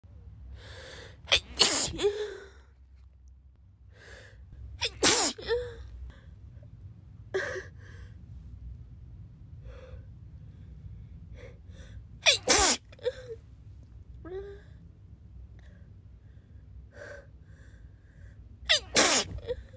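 A sick person sneezing repeatedly: about five loud, sudden sneezes spread over twenty seconds, with fainter breaths between them.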